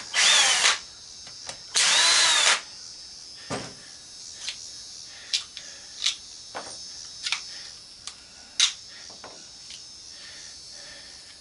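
Power drill backing out two screws in two short runs, each spinning up and winding down. Light clicks and taps follow as the screws and parts are handled.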